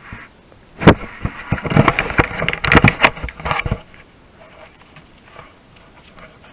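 An animal bumping and scraping against a trail camera right at its microphone: a string of loud knocks, scrapes and crackles for about three seconds, then only faint hiss.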